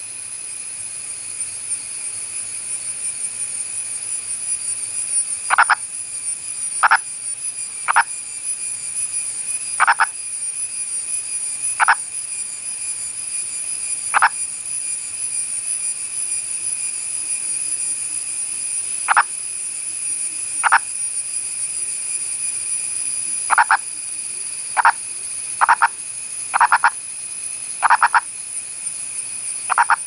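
Indian purple frog (Nasikabatrachus sahyadrensis) calling: short single croaks every second or two, with a pause of several seconds midway and closer spacing near the end. A steady high-pitched drone runs underneath.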